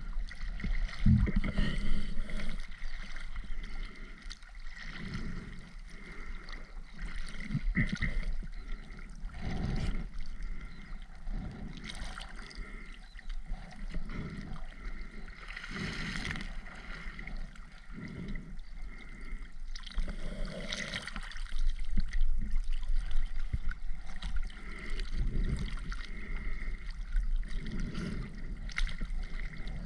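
Water gurgling and sloshing in irregular bursts every few seconds over a low steady rumble.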